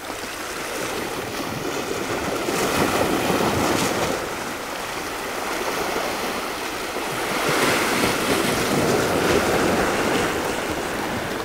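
Sea waves washing and surging against a rocky shore, a steady rush that swells twice.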